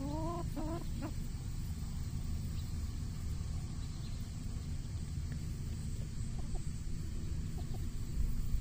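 Chickens clucking: a few short, slightly rising calls in the first second, then only faint scattered clucks over a steady low rumble.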